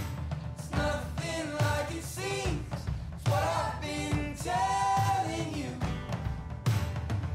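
Background pop song with a singing voice over a steady beat.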